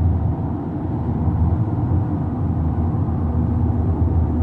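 Steady low rumble of a car at highway speed, heard from inside the cabin: tyre and road noise with the engine running underneath.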